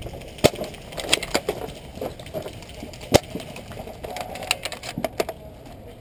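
An irregular series of sharp cracks and snaps, the loudest about half a second in and about three seconds in, with clusters of smaller snaps between them.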